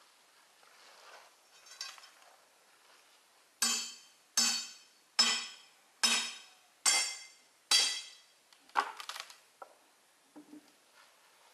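Six ringing metal strikes about a second apart, a hand tool hitting the sawn log, followed by a few lighter clinks and knocks.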